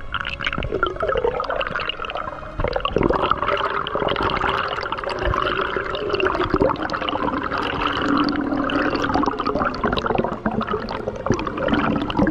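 Underwater bubbling and gurgling of rising air bubbles, heard underwater: a dense, continuous rush of bubble noise with many small pops.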